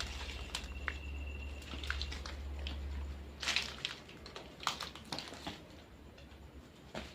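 Scattered small crunches and clicks of footsteps and handling on debris inside a ruined house, over a low rumble that stops about four seconds in.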